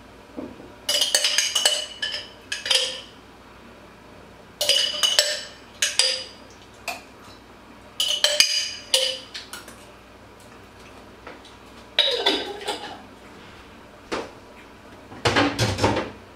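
A metal spoon and dishes clinking, in five short bursts of ringing clinks about every three to four seconds; the last, near the end, is a heavier clatter.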